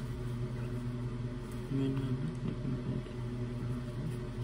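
Steady low electrical hum, with a faint brief low murmur about two seconds in.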